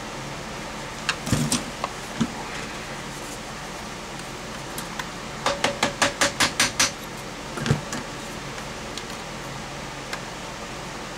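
Metal hand tools clicking and knocking on the drain auger's cast metal housing during disassembly: a few scattered knocks, then a quick run of about nine clicks, about six a second, then one more knock.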